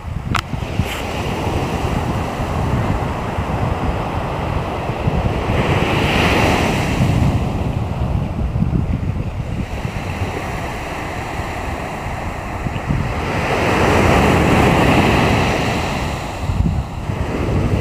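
Sea waves washing onto the shore, swelling as breakers come in about six seconds in and again near the end, with wind rumbling on the microphone.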